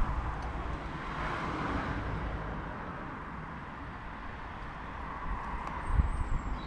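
Steady outdoor background noise with a distant, traffic-like rumble, and low thumps on the microphone about six seconds in.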